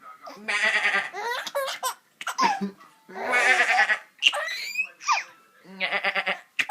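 A man imitating a sheep, giving three wavering bleats, each answered by a baby's high-pitched belly laughs and squeals.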